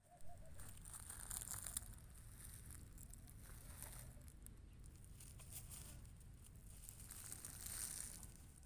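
Kitten scratching and digging at its toilet spot: faint rustling scrapes in bursts, busiest about a second in and again near the end.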